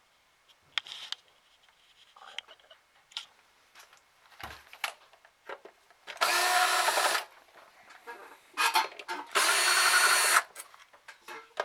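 Cordless electric screwdriver spinning twice, each run about a second long, backing out screws from the casing of an Xbox 360 DVD drive. Small clicks and knocks of handling come before them.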